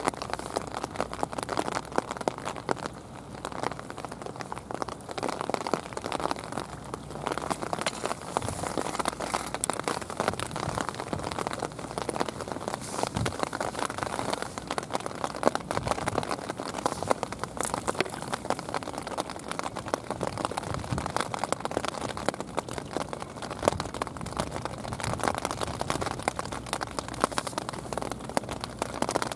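Steady rain falling, an even hiss of rain dotted with many small sharp ticks of single drops.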